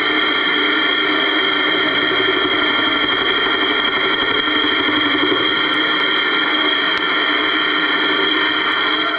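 Homemade benchtop metal lathe, driven by a brushless sewing-machine motor through a belt, running while a carbide tool cuts the spinning workpiece: a steady high-pitched whine with a lower hum beneath.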